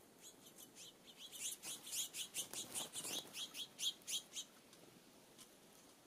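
A songbird giving a rapid run of short, sharp chattering call notes, about five a second, growing louder in the middle and stopping about four and a half seconds in.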